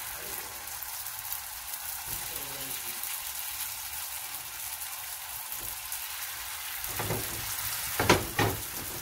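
Oil sizzling steadily under squares of pastilla-sheet msemen frying in a non-stick pan, with two short knocks near the end.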